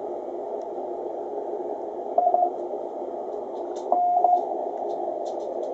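Shortwave receiver background noise from a Ten Tec Paragon 585 transceiver's speaker, a steady hiss narrowed by the band pass filter so that only a low-middle band of it comes through. Short steady beeps cut through the noise about two seconds in and again about four seconds in.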